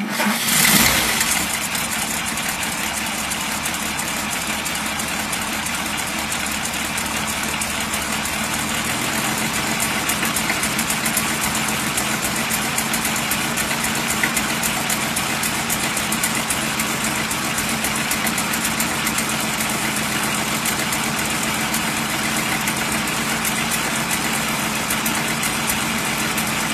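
1940 Packard 110's straight-six flathead engine, just started, running loud for the first second and then settling into a steady idle.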